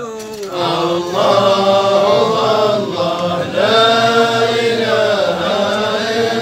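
Men's voices chanting a Sufi hadra dhikr together, unaccompanied, in long held notes that slide slowly up and down; the chant swells louder about a second in.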